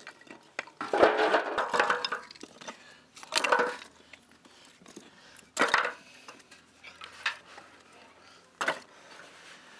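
Split firewood sticks clattering and knocking as they are dropped into a metal basin: a long clatter about a second in, then several shorter, separate knocks.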